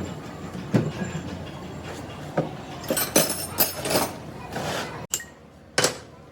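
Sharp metallic knocks and clinks of tools and pump parts being handled, most of them bunched together about three to four seconds in, over a low workshop hum.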